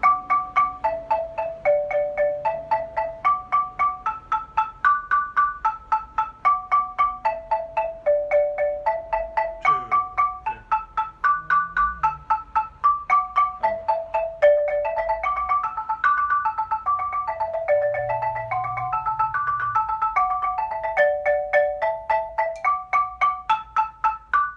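Xylophone played with two mallets in a steady, even stream of single notes that run up and down in repeating scale figures. It is a practice exercise in D major.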